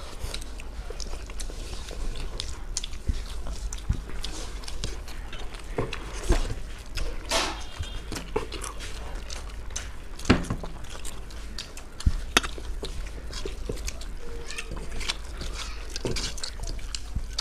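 Close-miked eating by two people eating rice and curry with their hands: wet chewing and lip smacks, with fingers working food on steel plates, and a few louder smacks or clicks, over a steady low hum.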